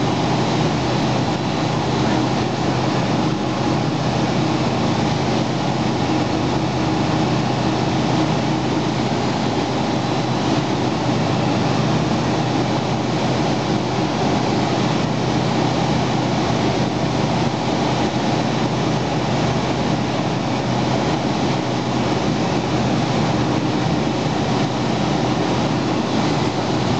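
Steady engine and propeller noise with rushing air, heard inside the cockpit of an Aeroprakt A22 Foxbat microlight on final approach.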